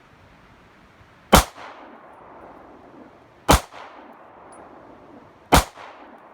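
Three single gunshots about two seconds apart, each sharp report followed by a short echoing tail.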